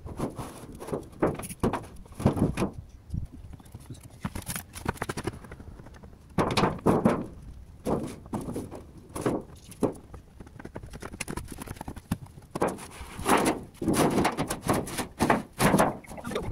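Irregular hollow knocks, thuds and clatter from a long sheet-metal valley gutter being handled and laid into place on a clay-tiled roof, mixed with footsteps on the tiles. The heaviest clatter comes about two seconds in, around the middle and again near the end.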